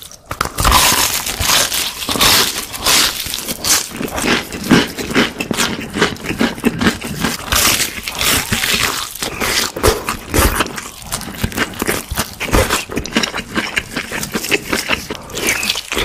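Close-miked eating of fried chicken: the crisp breaded crust crunching and crackling under the teeth, with chewing, in a dense run of irregular crackles.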